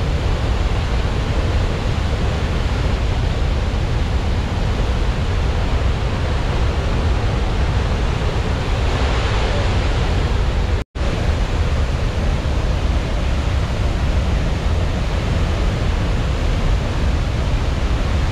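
Athirappilly Falls in heavy flow: a loud, steady rush of falling water with a heavy low rumble. The sound breaks off for an instant about eleven seconds in.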